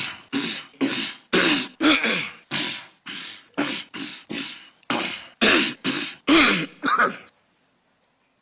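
A man coughing in a long fit of rapid, hacking coughs, about two a second, that stops abruptly about seven seconds in; he says he has flu.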